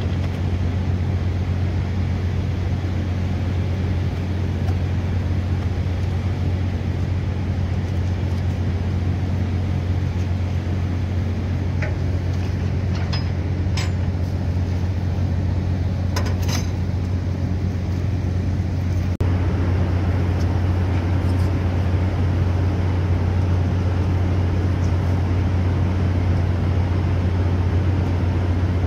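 Steady low drone of a ship's machinery, a deep constant hum, with a few light clicks in the middle.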